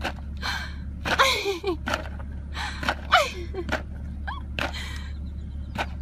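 An emu pecking fast into a plastic tub of feed: a string of sharp taps, some in quick runs. Mixed in are several breathy gasping cries that slide down in pitch, the loudest about a second in and about three seconds in.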